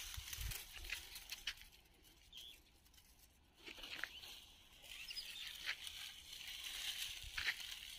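Faint outdoor ambience: scattered short chirps, likely from birds, and light rustling ticks.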